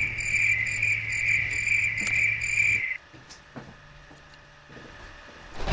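Crickets chirping in a steady high trill that stops abruptly about three seconds in, leaving quiet room tone.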